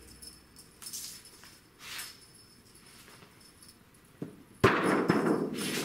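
A cat pounces at a string toy and lands on a paper backdrop: a sudden thump about four and a half seconds in, followed by about a second of paper rustling and scrabbling. Before that, a couple of faint, short jingles.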